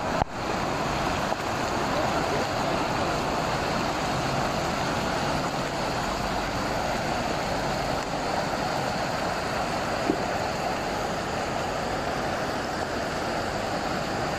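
Floodwater rushing along a street: a steady rushing noise.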